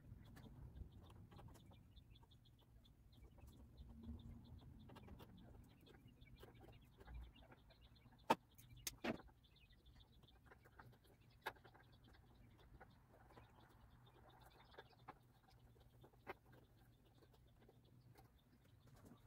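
Near silence with faint scattered ticks and a few sharp clicks, twice close together about eight and nine seconds in, then once each near eleven and sixteen seconds: small hand work on wiring at the front of a car.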